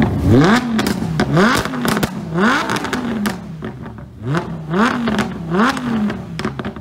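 Lamborghini Huracán V10 engine revved in a string of quick throttle blips. The pitch jumps up and slides back down each time, about eight times in all.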